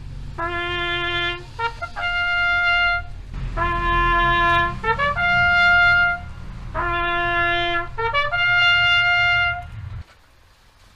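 Solo trumpet playing the slow call of honours to the fallen. Long held notes alternate between a low note and the one an octave above, linked by quick short notes, and the playing ends shortly before the close, with a low rumble under it that cuts off.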